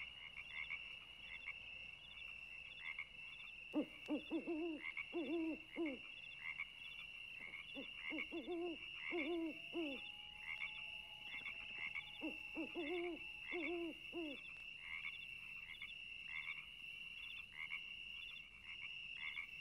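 A steady, evenly pulsing high-pitched animal chorus, with three rounds of lower, repeated pitched calls about 4, 8 and 12 seconds in.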